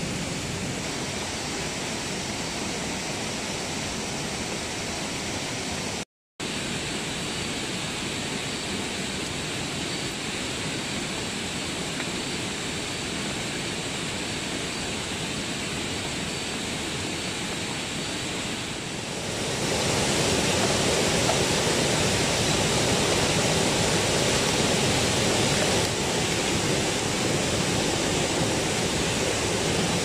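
Steady rushing of running water. It drops out for a moment about six seconds in, and becomes louder and fuller about two-thirds of the way through.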